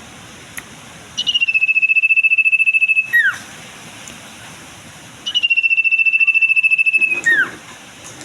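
Common iora singing: two long trilled notes, each about two seconds, each ending in a quick falling whistle. This is the song of a bird in breeding condition.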